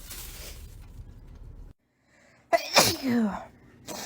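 A person sneezing loudly once about halfway in, a sharp burst with a voiced cry that falls in pitch. Before it, a steady background hiss cuts off suddenly.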